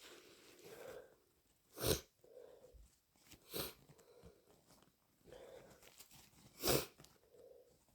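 Three short, sharp sniffles through a congested, snotty nose, roughly two seconds apart, with soft breathing between them: the sounds of a heavy head cold.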